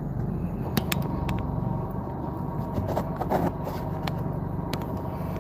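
Steady low hum of a car, heard from inside the cabin, with a few short clicks scattered through.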